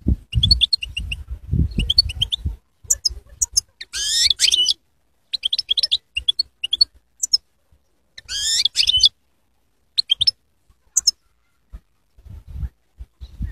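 European goldfinch singing: twittering phrases of quick high chirps broken by short pauses, with two longer, dense falling trills about four and eight seconds in.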